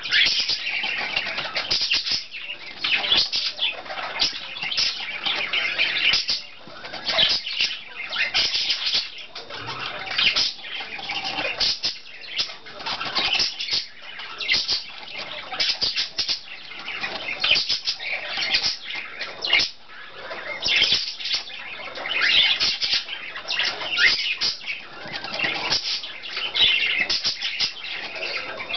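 Small pet bird picking at and rummaging in styrofoam: a dense, irregular crackling and rustling of foam and loose foam beads.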